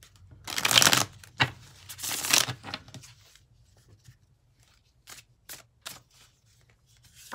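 A deck of tarot cards being shuffled by hand: two loud, brief rustling passes in the first three seconds, then a few light card taps.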